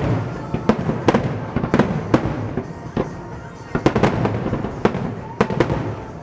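Fireworks display: a rapid, irregular series of sharp bangs and pops over a continuous low rumble.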